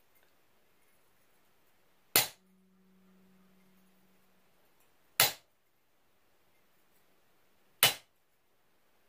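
Ball-peen hammer striking a chisel held on a metal leaf keychain blank over the anvil of a bench vise: three sharp metallic strikes a few seconds apart, each with a short ring, as the leaf's vein lines are cut in.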